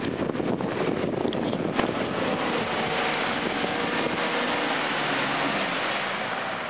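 Nissan Patrol GR 4x4 driving through a flooded ford and out of the water: its engine running under the steady rush of water splashing and sloshing off its tyres.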